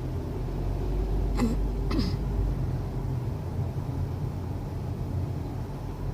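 Steady road and engine rumble inside the cabin of a moving 2016 Honda Civic, with two brief sharp sounds about a second and a half and two seconds in.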